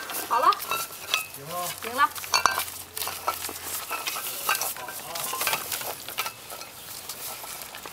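Weimaraner puppies eating dog food from stainless steel bowls: a busy, crackly mix of chewing, lapping and muzzles clicking against the bowls, with a few short squeaky calls in the first two or three seconds.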